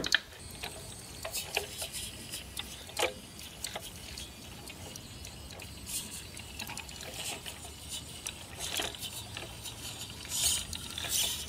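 A radio-controlled model Unimog and its trailer crawling over loose dirt and pebbles: scattered crackles and crunches of the tyres on the soil, over a faint low drive hum. A sharp click sounds right at the start.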